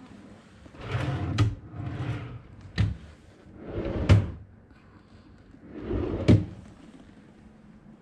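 Wooden dresser drawers slid open and pushed shut four times, each slide ending in a sharp knock as the drawer hits its stop.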